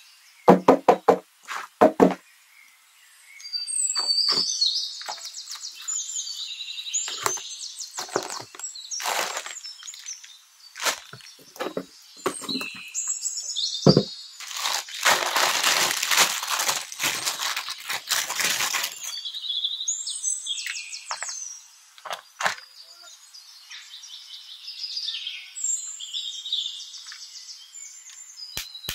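Unwrapping and opening a gift-wrapped cardboard box by hand. A quick run of sharp clicks and taps comes first, then high, scratchy squeaks in several spells, a single knock, and a few seconds of loud paper tearing and crinkling in the middle.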